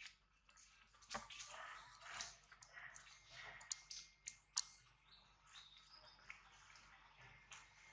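Near silence: faint outdoor ambience with a few sharp little ticks and clicks around the middle.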